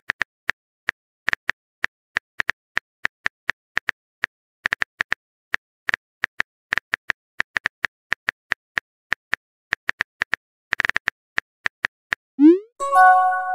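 Typing sound effect of a texting app: quick, uneven keyboard clicks, several a second. Near the end a rising swoop and a short chime mark a new message popping in.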